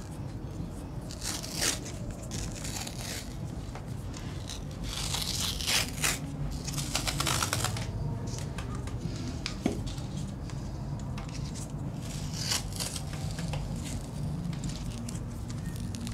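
Adhesive athletic tape pulled off a roll and torn in several short rips while hands are being taped, over a low steady hum.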